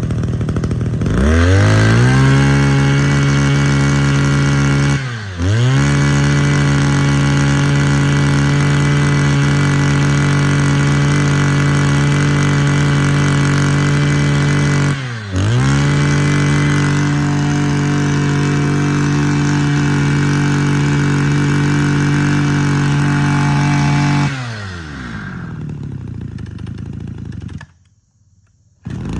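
LPG-fuelled Mitsubishi TL23 two-stroke brush cutter engine revving up about a second in and held at high revs. The throttle dips and recovers briefly twice. About five seconds before the end it drops to idle, then cuts out.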